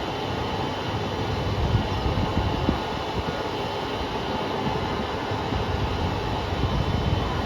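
KiHa 200 diesel railcar standing with its engine idling: a steady low rumble. Car KiHa 200-1551 gives off an abnormal noise throughout, a sign of a fault that took the unit out of service the next day.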